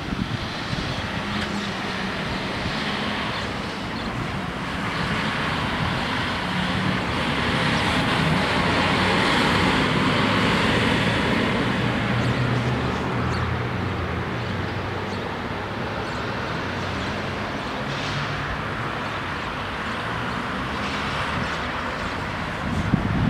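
Road traffic going by: a heavy truck's engine and tyres swell to their loudest about halfway through, then fade into the steady hum of passing cars.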